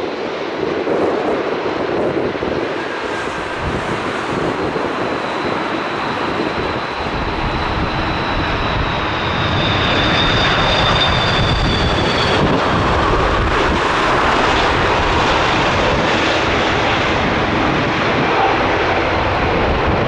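Aer Lingus Airbus A330's twin jet engines on final approach, a steady rushing that grows louder and deeper as the airliner passes close. A high fan whine sinks slightly in pitch and fades about twelve seconds in.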